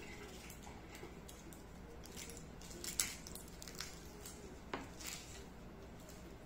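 Knife peeling the skin off an onion: faint scrapes and crinkles, with a few sharper clicks and light taps on a wooden cutting board, the clearest about three seconds in and again near five seconds.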